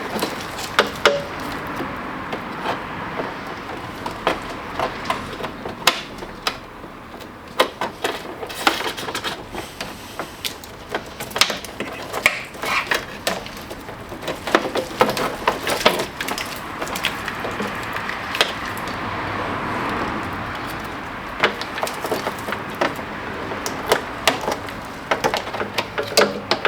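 Irregular knocks, clicks and clatter of car parts and hand tools being handled during a car strip-down, over a steady background hiss.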